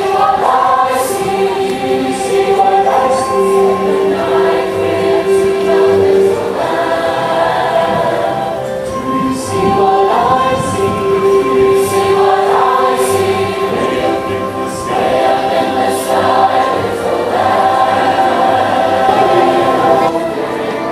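A large choir singing in long, held notes, the singers' s sounds hissing together at intervals.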